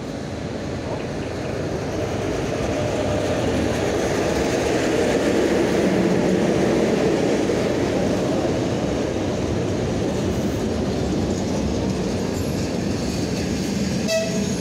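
ChS8 electric locomotive and its passenger coaches rolling past with a steady rumble and wheel clatter on the rails. The sound swells as the locomotive goes by, loudest about six seconds in, then holds as the coaches pass.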